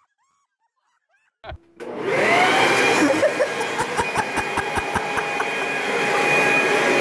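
Near silence, then a click, then a small electric blower motor spins up with a rising whine and runs steadily. Rapid clicking comes over it for a couple of seconds in the middle.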